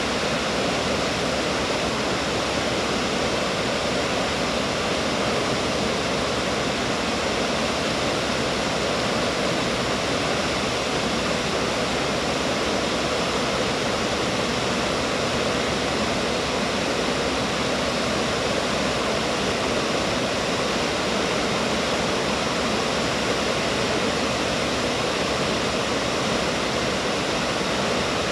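Water pouring over a wide, low dam spillway onto a rocky riverbed: a steady, unbroken rush of falling water.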